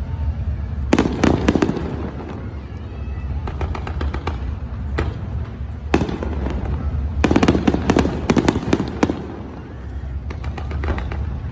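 Fireworks going off. A cluster of bangs and crackles comes about a second in, a single bang near six seconds, and a dense rapid volley of crackling from about seven to nine seconds, all over a steady low rumble.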